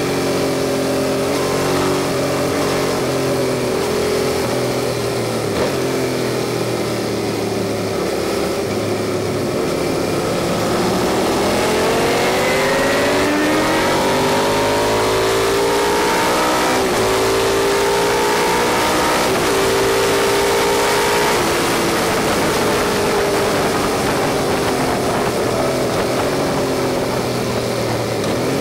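Onboard sound of a Suzuki SV650's 90° V-twin engine lapping a race track. The revs fall away as it rolls off, climb again from about ten seconds in under hard acceleration, hold, drop for the next corner and rise once more near the end, all under a constant rush of wind.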